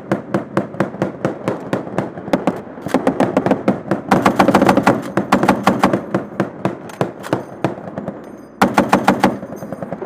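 M2 .50 caliber heavy machine gun firing sustained automatic fire from right behind the gun, a steady stream of heavy reports. The fire is densest and loudest about four seconds in, eases off, then comes back in a loud burst near the end.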